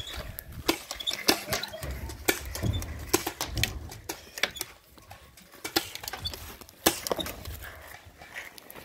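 Irregular sharp clicks and pops, roughly one to two a second with the loudest about seven seconds in, over a low, uneven rumble of movement.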